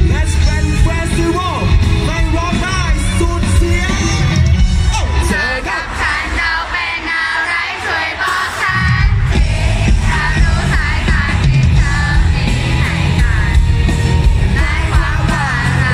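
Live pop-rock band music with a male vocalist singing into a microphone, recorded from within the audience. The bass and drums drop out for about three seconds in the middle, leaving the voice, then come back in.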